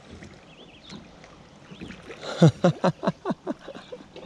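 A person laughing: a quick run of about eight short 'ha' bursts, each falling in pitch, that starts about two seconds in and dies away.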